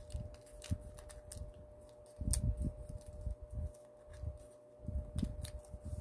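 Folded origami paper handled and creased by hand: small irregular crinkles and clicks with low bumps against the work surface, loudest about two seconds in and again near the end, over a faint steady hum.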